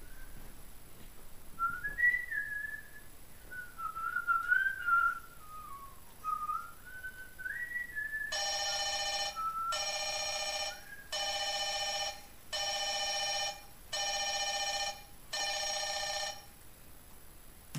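Someone whistling a wandering tune, then a mobile phone ringtone that rings six times, each ring about a second long with short gaps between.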